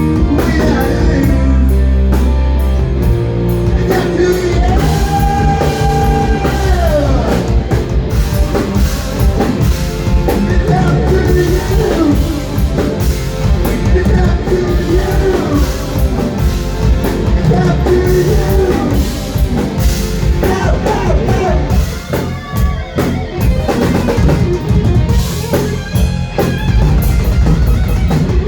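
Rock band playing live: drum kit, distorted electric guitar and bass, with lead guitar lines that bend in pitch. About three quarters of the way through, the playing turns choppier, with short hits and gaps.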